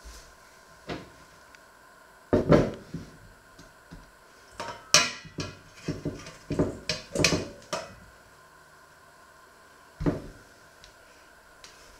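Cookware being handled on a wooden worktop: heavy thumps as an enamelled pot is set down, then a stainless steel mixing bowl clattering and scraping against it as dough is tipped out, a run of knocks, and one more thump near the end.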